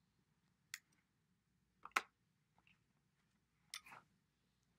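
Dry erase markers being handled and swapped: a few sharp plastic clicks and clacks, the loudest about two seconds in, with a short rattle near the end.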